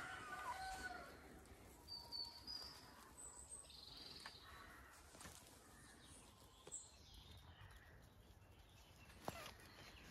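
Mostly near silence, with a puppy's brief whimpering call in the first second and a few faint, short, high bird chirps scattered through the rest.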